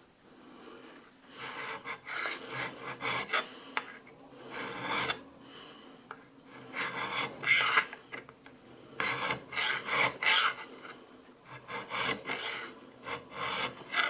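Hand file rasping on metal in repeated back-and-forth strokes, in short runs with brief pauses between, while a sight dovetail on a 1911 pistol is being filed to fit.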